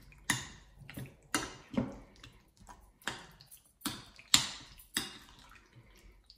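Metal fork clinking and scraping against a ceramic bowl while it mixes raw chicken strips in a wet spice marinade: about ten sharp, irregular taps.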